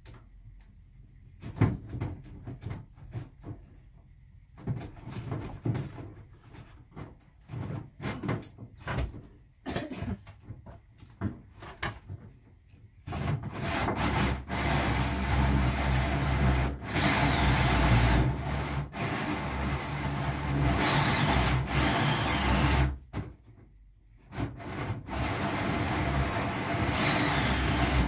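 Cordless drill driving a hole saw up through a bus's sheet-metal roof at a pilot hole. For the first dozen seconds there are short starts, taps and scrapes as the saw is set against the metal. Then comes about ten seconds of loud steady cutting, a brief stop, and more cutting near the end.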